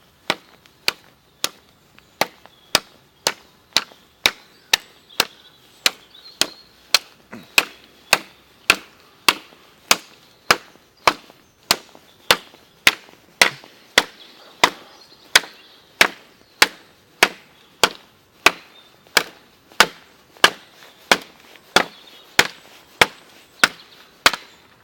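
Machete chopping through a wooden branch: a long, steady run of sharp blade strikes on wood, a little under two a second.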